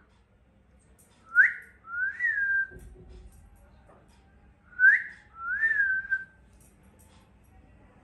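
A whistled two-note call given twice, about three and a half seconds apart. Each is a short, sharp upward flick followed by a longer note that rises and then holds level.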